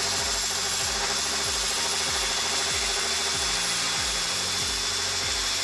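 Drill spinning a wire wheel brush against the edge of an aluminium rain gutter rail, a steady whirring scrub as it strips old sealant and paint down to clean metal.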